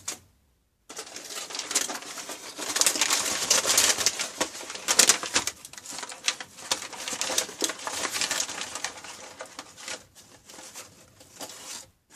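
A bag being handled and crinkling, with a continuous dense crackle that starts about a second in and stops abruptly near the end.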